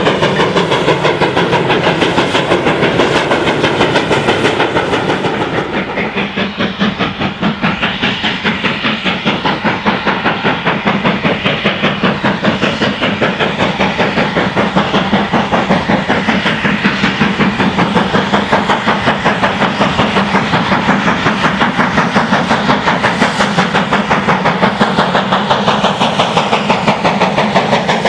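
GWR Manor class 4-6-0 steam locomotive 7822 Foxcote Manor, a two-cylinder engine, working a train with a rapid, steady beat of exhaust from the chimney, with the clatter of the train over the rails beneath it.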